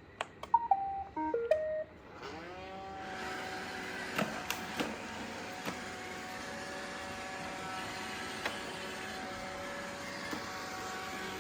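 Roomba robot vacuum being switched back on: a short run of stepped electronic beeps, then its motors spin up with a rising whine and it settles into a steady running hum, vacuuming, with a few clicks.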